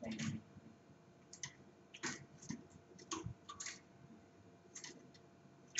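A small cage bird hopping and landing on the perches and wire bars of a round metal cage: faint, irregular light clicks and taps, often in quick pairs.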